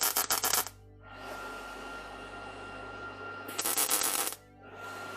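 Two short tack welds on sheet steel, each a burst of sharp welding crackle lasting under a second: the first at the start, the second about three and a half seconds in. A steady low hum runs underneath.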